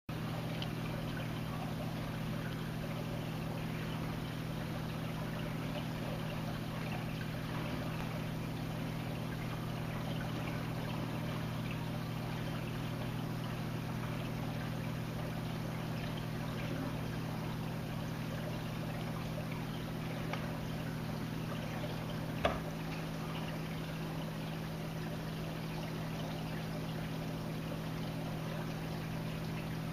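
Steady hum and water trickling from reef aquarium pumps and filtration, with one sharp click about two-thirds of the way through.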